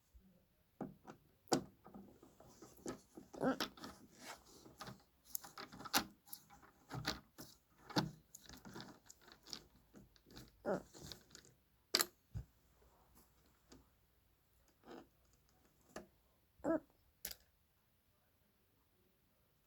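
Hands and tools working on a subwoofer being taken apart: scattered, irregular clicks, knocks and scrapes of plastic and metal parts being handled, busiest in the first half and dying away near the end.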